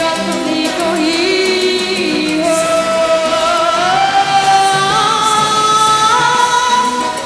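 A girl singing into a microphone over backing music with a steady beat, holding long notes that step upward in pitch through the middle.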